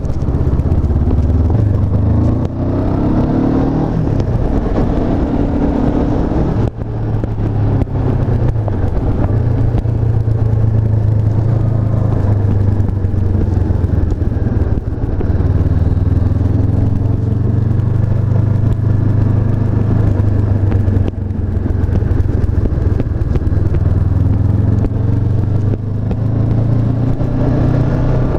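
Honda CB500F's parallel-twin engine running under way while riding, its note rising under acceleration. The sound dips briefly a few times, at gear changes.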